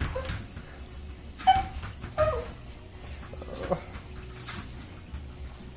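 Small dog whining in a few short, high whimpers, some falling in pitch, spread over the first four seconds.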